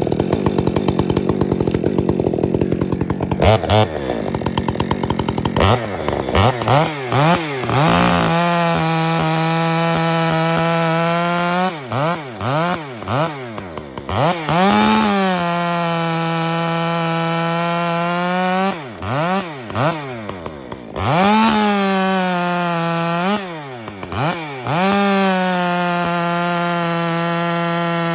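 Stihl MS 462 two-stroke chainsaw with an aftermarket muffler, revved and then held at high revs through several cuts, each lasting a few seconds. Between cuts the engine drops back and is blipped up and down.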